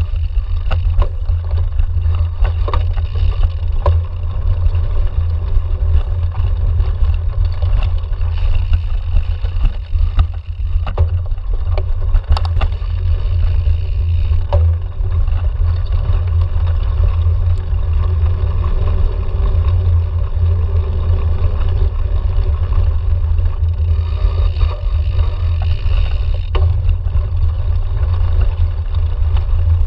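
Steady low rumble of wind and vibration on a handlebar-mounted camera as a cyclocross bike rides over a bumpy dirt and grass course, with scattered knocks and rattles as the bike hits bumps.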